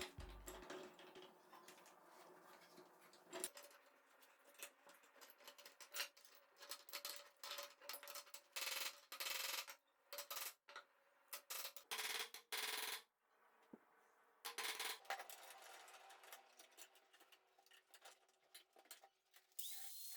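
Irregular scraping strokes from hand work on a small axe under repair, with light metallic clinks between them.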